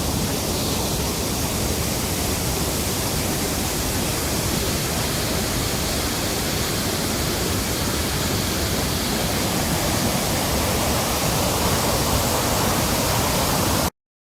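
A small hillside stream swollen by rain into a powerful waterfall, its water rushing down steadily. The sound cuts off suddenly near the end.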